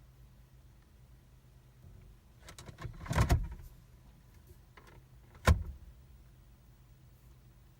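Jeep automatic gear selector being shifted between positions: a rattling cluster of clicks and clunks about three seconds in, then one sharp clunk a couple of seconds later, over a faint steady hum. The shifting is an attempt to close the park/neutral interlock on a no-start.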